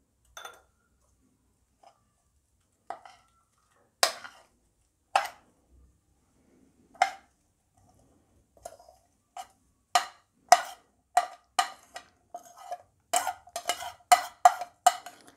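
Metal spoon scraping and tapping against a ceramic plate, pushing chopped tomato, onion and green chili into a bowl of beaten egg. A few scattered knocks at first, then quick taps several a second from about two-thirds of the way in, each ringing briefly.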